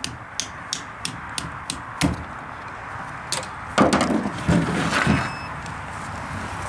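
Sharp clicks about three a second as a knife works at a snapping turtle's leg joint. Then the heavy turtle is turned over on the truck tailgate's bedliner: loud knocks, thumps and scraping of the shell, the loudest part coming about four to five seconds in.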